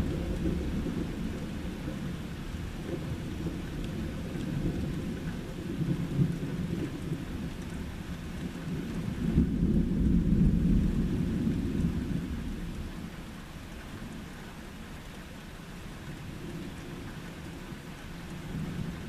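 Thunder rumbling over steady rain. The rumble eases, swells again about halfway through, then dies away.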